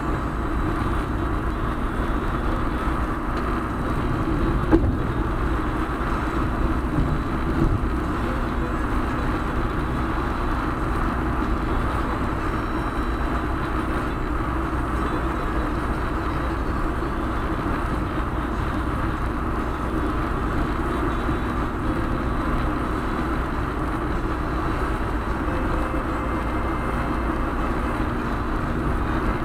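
Steady road and engine noise of a car driving, heard from inside the cabin, with a light thump about five seconds in and another near eight seconds.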